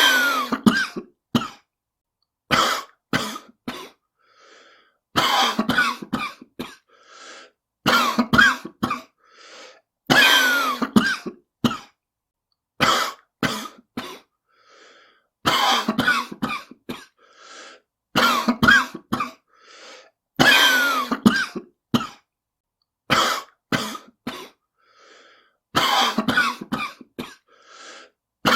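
A person coughing in repeated fits: a cluster of loud coughs about every two to three seconds, with fainter sounds between fits. It is presented as a smoker's cough.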